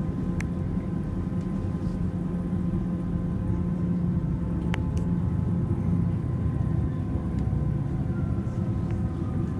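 Steady running rumble of a moving passenger train heard from inside the carriage, with two sharp clicks, one near the start and one about halfway through.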